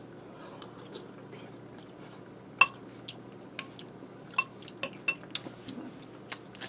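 Metal spoon clinking against a ceramic soup bowl: scattered light clinks, the loudest about two and a half seconds in, most of them coming close together in the second half.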